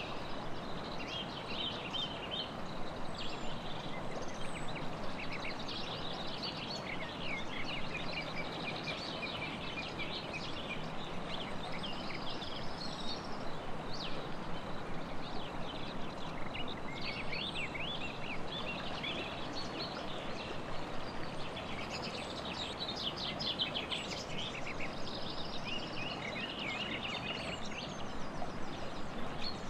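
Several birds chirping and trilling over a steady rush of flowing river water.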